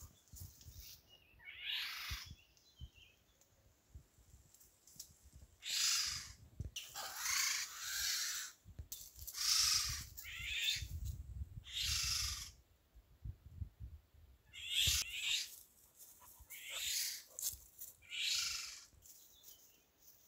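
Eurasian golden orioles giving a series of about eight harsh, rasping calls, each under a second long, at irregular intervals.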